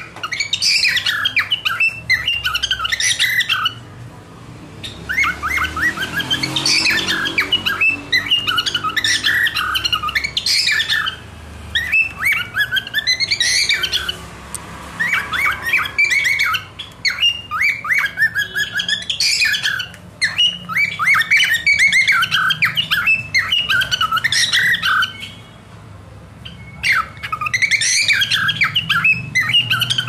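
Cockatiel chirping and warbling in quick strings of short, high, squawky notes. The notes come in bouts of several seconds with brief pauses between them.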